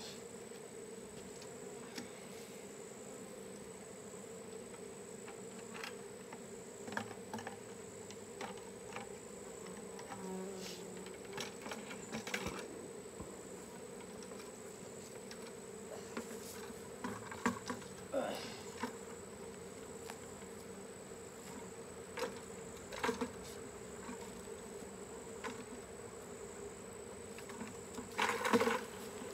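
Honeybees from a swarm buzzing in a steady droning hum. Scattered short knocks and clatters of handled gear sound over it, with the loudest cluster near the end.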